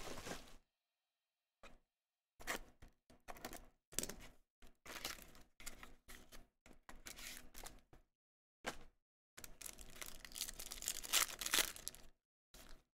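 Sports card packaging and cards being handled as a box is opened: a run of short crinkling, tearing and scraping bursts broken by brief silent gaps, busiest and loudest about ten to twelve seconds in.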